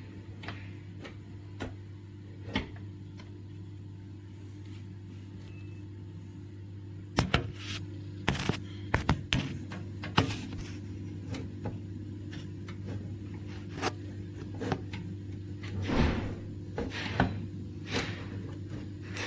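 A run of sharp knocks and clicks, like hard panels or parts being handled, over a steady low hum. The knocks are sparse at first and come thick and fast from about a third of the way in.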